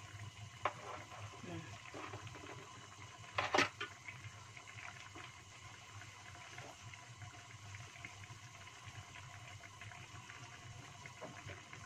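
Chicken stew bubbling gently in a wok on a gas burner, a faint steady simmer with small crackles and one louder brief pop-and-sizzle about three and a half seconds in. The broth is being boiled down so the liquid reduces and the chicken turns tender.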